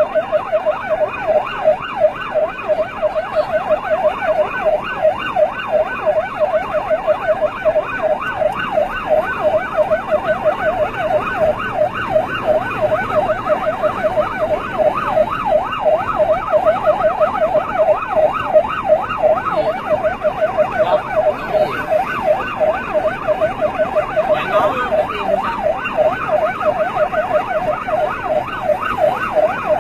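Vietnamese police siren in a fast yelp, its pitch sweeping up and down several times a second without a break.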